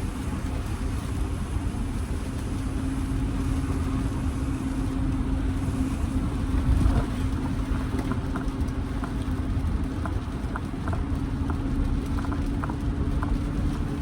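Jeep Grand Cherokee's Hemi V8 with a mid-muffler delete, droning steadily at cruise, heard from inside the cabin with tyre and road rumble. From about eight seconds in there are light, irregular ticks.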